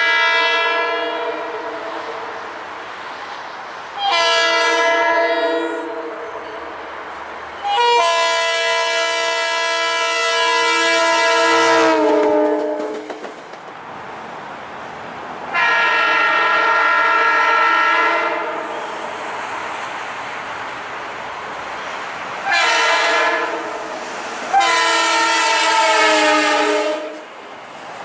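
Metro-North commuter train horns sounding at grade crossings: a series of long and short blasts, each a chord of several notes. Two of the long blasts drop in pitch at the end as the train passes.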